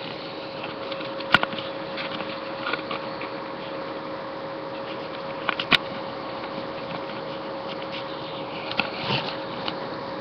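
Handling noise from a webcam being moved about: two sharp clicks, about four seconds apart, then a few softer knocks near the end, over a steady hum and hiss.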